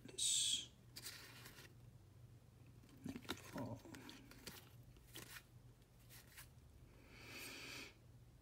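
Trading cards sliding against one another as they are shuffled through by hand: a short sharp swish right at the start, softer swishes and light card taps after it, and a longer quieter swish near the end.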